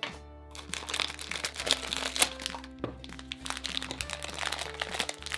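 Plastic toy packaging crinkling and crackling with many irregular clicks as a Pikmi Pops Cheeky Puffs case is opened and its contents unwrapped, over background music.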